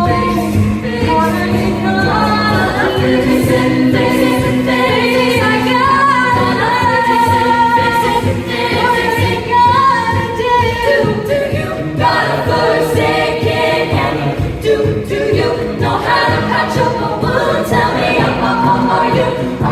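A cappella vocal group singing in harmony, voices holding chords while higher lines move above them.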